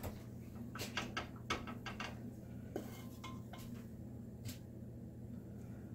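Wooden spoon knocking and scraping against a metal skillet as scrambled eggs are scooped out: a cluster of knocks in the first two seconds, then a few spaced ones. A steady low hum runs underneath.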